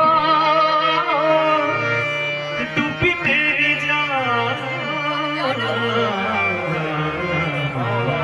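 A man singing a melody with wavering ornaments, accompanied by a harmonium's held reed tones and tabla drums.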